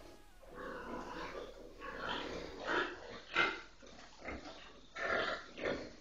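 Domestic pigs grunting: a string of short grunts, faint at first and louder from about halfway through, coming roughly every half second to second.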